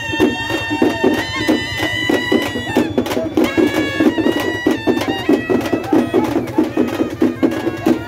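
Traditional procession music: a reed wind instrument holds a long note, then plays a wavering melody from about three seconds in, over fast, steady drumming.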